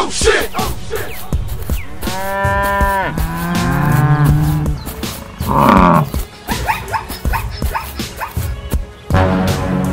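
Cattle mooing: several long moos, two back to back a couple of seconds in and another starting near the end.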